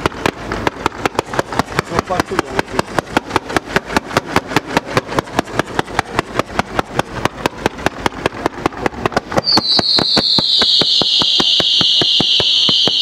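Fireworks firing in rapid succession: a fast, even string of sharp shots, about five a second, as rows of comets are launched. About nine and a half seconds in, a loud steady hissing of ground-level fountains joins the shots.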